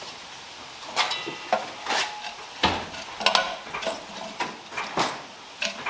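Hand tools and metal car parts clinking and knocking during work on the car: a run of separate sharp knocks, a few ringing briefly like struck metal.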